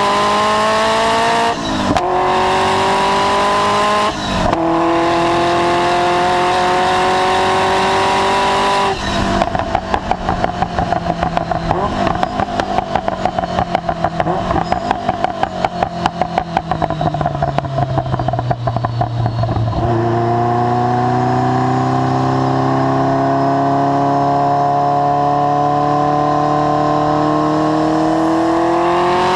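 Ferrari F40's twin-turbo V8 through a Tubi Style exhaust at full throttle, its pitch rising through two quick upshifts in the first few seconds. About nine seconds in, the driver lifts off and the exhaust crackles and pops rapidly on the overrun for about ten seconds as the revs fall, then the engine pulls hard again with a long steady rise in pitch.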